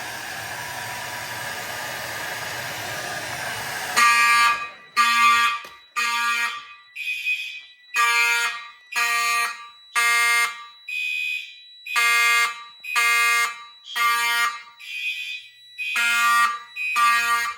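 A hot-air blower runs steadily for about four seconds, heating a rate-of-rise heat detector. The detector then trips and the fire alarm horns sound in loud, evenly pitched pulses, about one a second, over a faint steady high tone.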